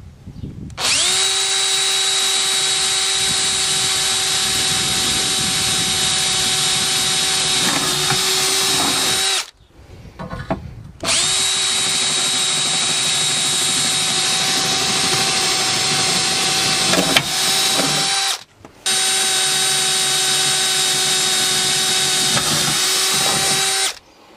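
Makita LXT cordless drill drilling bolt holes through the boat's fibreglass, running at a steady whine in three long runs with two short pauses, each run spinning up quickly as it starts.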